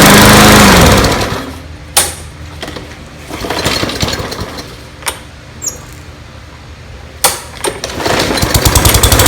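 The new recoil pull cord on a Briggs & Stratton lawnmower engine is yanked, spinning the engine over with a whir that rises and falls in pitch. A quieter stretch with three sharp knocks follows, and a second pull builds near the end. The recoil is working after the cord replacement.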